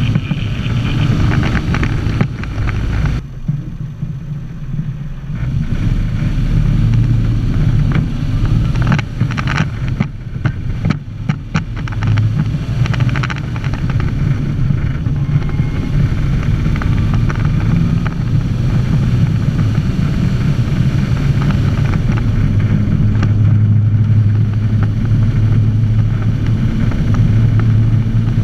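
Unimog 404 fire truck's petrol six-cylinder engine running under way, heard from inside the cab. The engine note eases briefly about three seconds in. A run of clattering knocks comes about ten seconds in.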